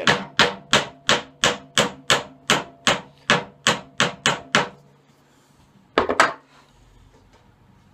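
Hammer driving a nail through a drilled hole in a wooden dowel: a steady run of about a dozen light strikes, roughly three a second, stopping a little before five seconds in. Two more quick knocks follow about six seconds in.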